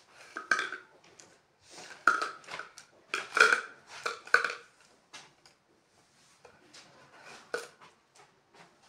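Clothes hangers knocking and clinking on a wardrobe rail as garments are taken down and rehung, with clothes rustling. A run of short knocks, loudest in a cluster from about two to four and a half seconds in, then a few lighter ones.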